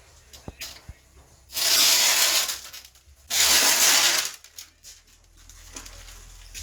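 Sandpaper rubbed by hand in two long strokes, each a rasping hiss of about a second.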